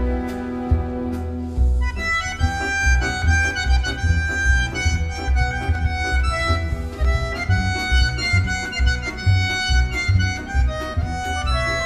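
Bandoneon playing a quick melody of short reedy notes in its upper range over a pulsing low accompaniment, the texture changing from held chords to the melody about two seconds in.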